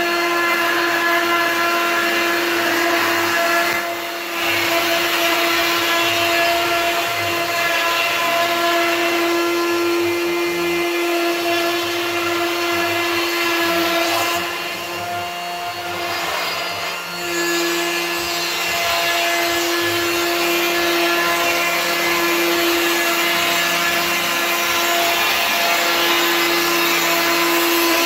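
Handheld electric router running at speed, its bit rasping across the face of a long wooden board to flatten it. The high motor whine is steady, fading briefly a few times.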